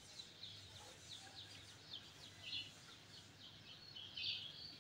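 Faint chirping of small birds: many quick, high chirps in irregular runs, a little louder about two and a half and four seconds in.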